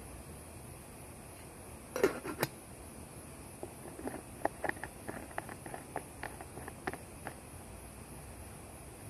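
Insects shrilling in a steady high drone, with a loud cluster of sharp clicks about two seconds in and a scatter of smaller clicks and taps over the next few seconds.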